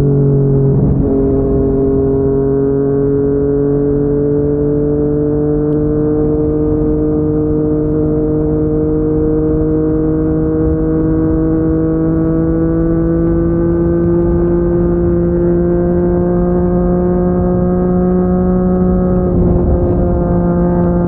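Yamaha MT-09's three-cylinder engine running through a Yoshimura R55 slip-on exhaust under way, heard from the rider's seat. The engine note climbs slowly and steadily as the bike gathers speed, with a brief change in pitch about a second in and another near the end, as at gear changes.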